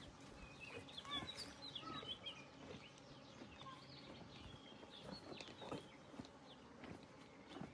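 Birds chirping and calling: many short, high calls overlapping, with a few faint knocks.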